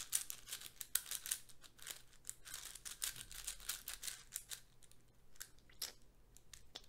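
YJ MGC 6x6 speedcube turned by hand in quick, irregular runs of turns, its plastic layers clicking and scraping as they slide. The cube is unlubricated straight from the box, which shows in its dry turning sound.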